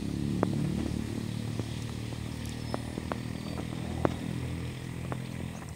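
A small engine, likely a motorcycle's, running steadily at a low, even pitch, with scattered sharp clicks over it. It stops near the end.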